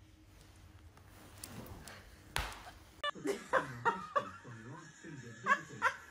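A single sharp click, then from about three seconds in people laughing in short repeated bursts.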